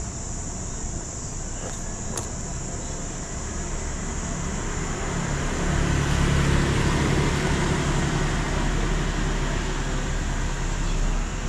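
Street traffic: a motor vehicle's engine draws close, swelling into a louder rumble about four seconds in and staying loud until it drops away near the end.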